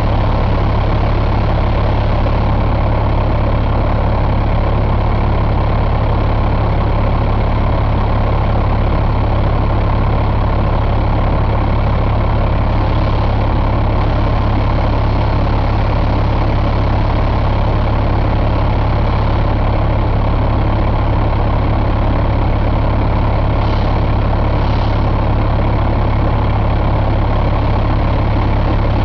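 Caterpillar C13 inline-six turbo diesel truck engine idling steadily.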